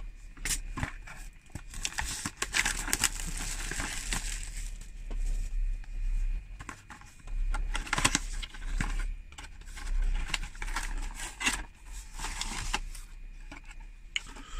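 A cardboard box and its plastic packaging being opened and handled: irregular rustling, crinkling and scraping of card and plastic, with scattered sharp clicks and taps.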